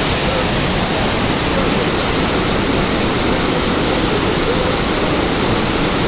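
Iguazu Falls rushing close by: loud, steady, unbroken roar of heavy falling water.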